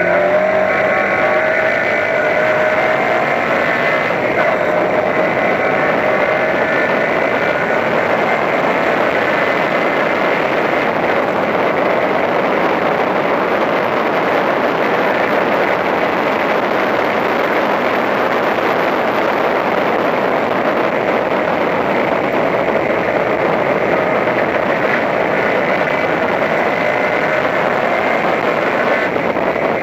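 Onboard sound of a Toyota Corolla Levin race car at racing speed: its engine running over a heavy haze of wind and road noise. The engine pitch eases down over the first few seconds and climbs again near the end.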